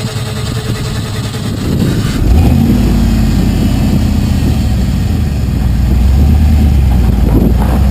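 Motor vehicle engine running, rising in pitch about two seconds in and then holding a steady, louder drone.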